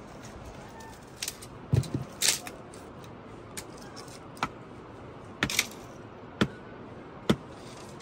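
A hand-held rock striking a wooden stake to drive it into stony ground: about a dozen sharp knocks at uneven intervals, some in quick pairs, the loudest about two seconds in.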